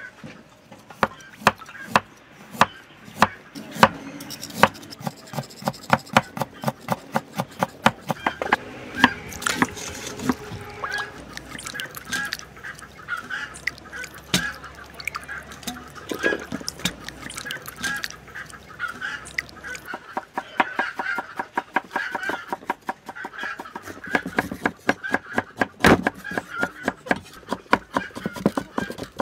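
Food preparation on a wooden chopping board: a cleaver knocking and scraping as it cuts and skins pieces of shark, with hands rubbing wet fish in a metal bowl. Many sharp knocks come through, several a second.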